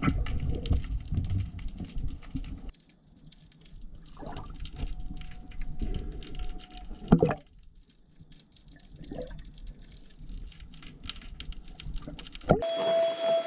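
Muffled underwater sound from a camera held underwater: water moving and bubbling around a diver. The sound changes abruptly several times, with a sharp loud knock about seven seconds in, and near the end it cuts to a different, steadier noise with a thin high tone.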